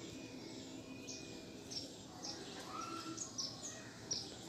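Small birds chirping: a series of short, high chirps that each fall quickly in pitch, about two a second.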